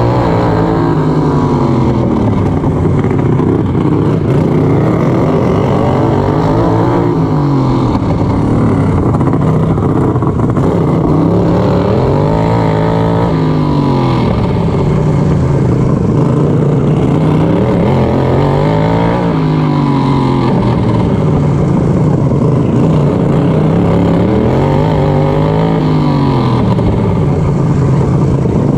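Racing lawnmower's engine running hard, heard from onboard. Its pitch swings down and back up about every six seconds as the mower slows for each corner of the short dirt oval and accelerates down the straights, lap after lap.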